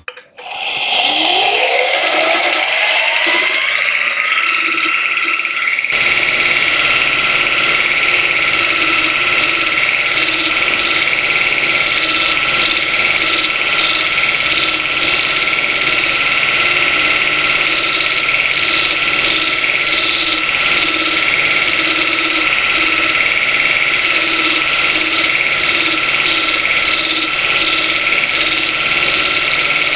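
Burr King 960-272 belt grinder starting up, its motor whine climbing over about four seconds to a steady pitch. From about six seconds in, steel is ground on the abrasive belt under the SG1200 surface grinder attachment: a steady grinding hiss over the whine, rising and falling as the work is passed back and forth.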